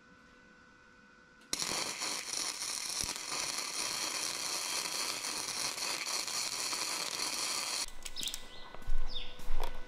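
Wire-feed welder arc crackling steadily as a bead is laid on a steel bracket on a pipe, starting about a second and a half in and cutting off suddenly after about six seconds. A few brief, louder sounds follow near the end.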